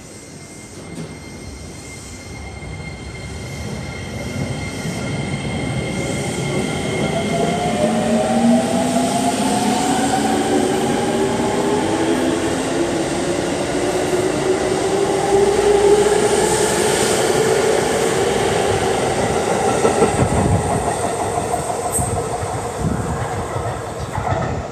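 JR 205-series electric commuter train pulling out of the station and accelerating past: its motor whine rises steadily in pitch under the rumble of the wheels on the rails. It fades slightly near the end as the last cars go by.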